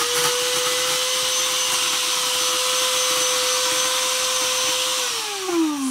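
Silver Crest electric powder grinder with a copper motor, running at full speed while grinding stones to powder. It makes a steady high whine with a loud grinding hiss. About five seconds in it is switched off, and the whine falls in pitch as the motor spins down.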